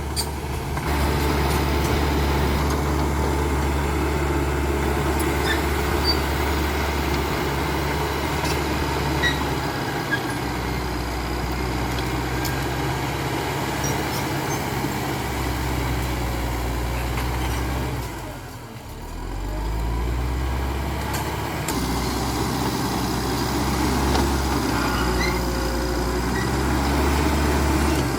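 CAT D5K XL bulldozer's diesel engine running under working load, its low hum shifting in pitch and strength as the load changes, with a brief dip about two-thirds of the way through.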